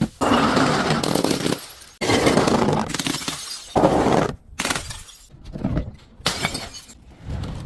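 Glass bottles breaking and being crushed: three long, loud bursts of shattering and crunching glass in the first half, then shorter, softer crunches.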